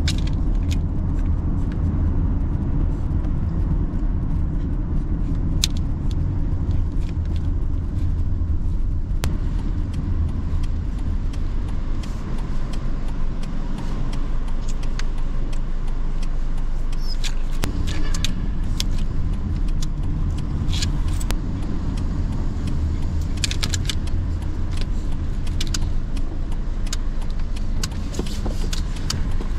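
A car driving: a steady low rumble of engine and road, with scattered light rattles and clicks. The rumble eases for a couple of seconds about halfway through, then comes back.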